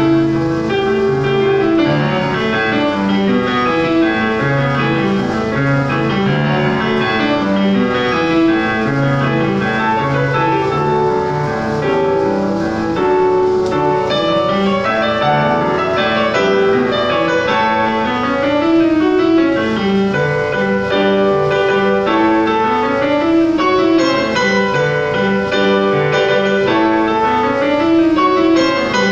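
Piano music: a melody over flowing broken chords, played continuously.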